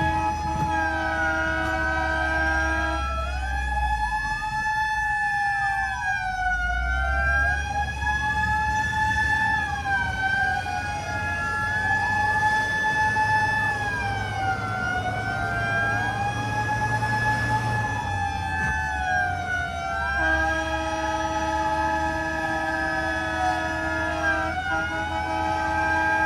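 Several fire-engine sirens wailing at once, their rising and falling tones overlapping and drifting in and out of step, over the low running of truck engines.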